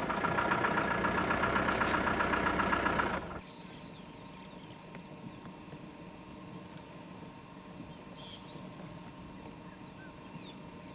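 Safari vehicle's engine running for about three seconds, then cutting off suddenly, leaving a quiet bush background with a few faint bird chirps.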